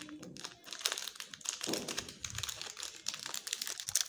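Plastic and foil candy wrappers crinkling as hands handle them and pull one open, a dense run of small crackles.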